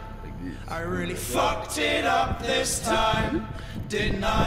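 Music with male voices singing.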